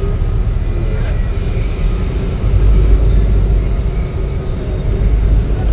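Heavy low vehicle rumble, like a bus engine with traffic around it, with a faint steady hum; it grows louder a little under halfway through.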